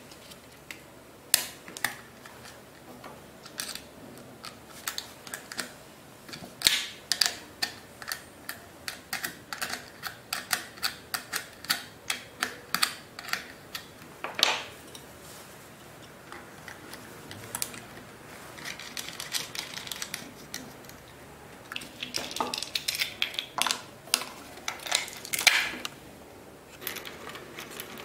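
Plastic and metal parts of an electric chain saw sharpener clicking and knocking as they are handled and fitted together by hand. There is a run of sharp clicks about two a second, a brief lull, then a denser rattle of taps near the end.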